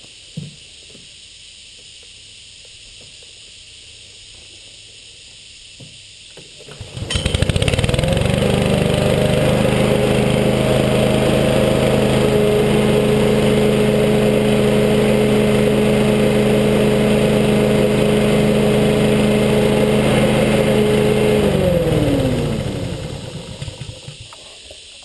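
Rover OHV 910 196cc single-cylinder overhead-valve lawn mower engine pull-started about seven seconds in, catching at once and running loud and steady at its fixed throttle. About fifteen seconds later it falls in pitch and winds down to a stop, as the engine brake cuts it when the handle bail is released.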